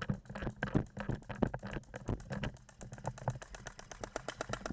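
Mechanical clicking from handling a jammed airsoft replica after its battery has been taken out: scattered clicks at first, then about halfway in a fast, even run of about eight clicks a second.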